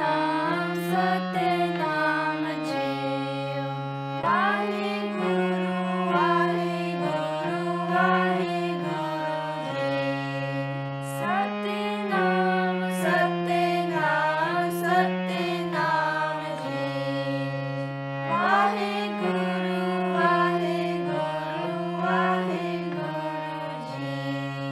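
Sikh kirtan: a woman, a girl and a boy singing a devotional hymn together to a harmonium, which holds sustained notes beneath the voices. The same sung phrase comes round about every seven seconds.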